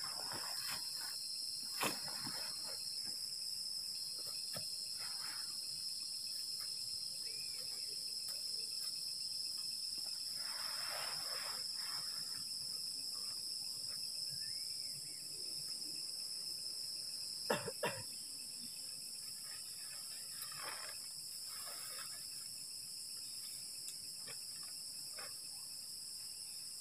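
Steady night chorus of crickets and other insects, a constant high-pitched trill. Over it come soft rustles of tent fabric being handled and a few sharp clicks, the loudest about two seconds in and a pair at about seventeen and a half seconds.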